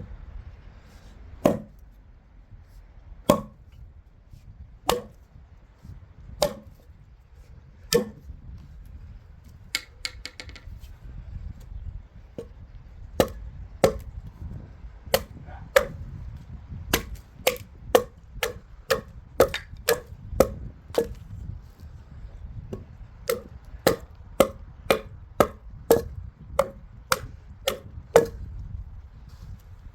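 Restored broad axe chopping into wood: a few single blows a second and a half or so apart, then after a short pause a quicker run of chops, about two a second.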